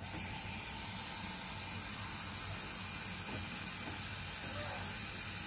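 Kitchen tap running steadily, with a smooth, even hiss of water. It starts abruptly and cuts off near the end.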